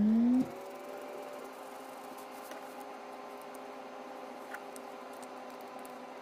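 Steady motor hum made of several held tones, one of them gliding up and settling during the first second as the motor comes up to speed. A few faint clicks and taps come from handling digital calipers on an aluminum block.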